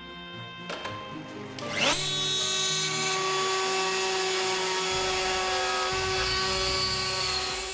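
Electric router of a manual hinge pantograph with a 16 mm milling bit spinning up with a quick rising whine about two seconds in, then running at a steady pitch.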